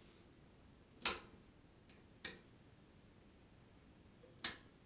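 Three sharp clicks from an electric convector heater with a small built-in blower, a second or two apart, as it is handled and its controls are pressed.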